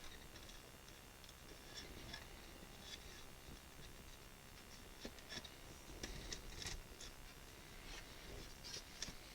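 Faint, scattered light taps and clicks of birch plywood pieces being handled and fitted together for a dry fit.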